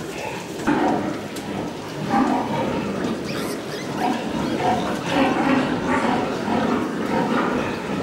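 Many pigs grunting together, their calls overlapping without a break.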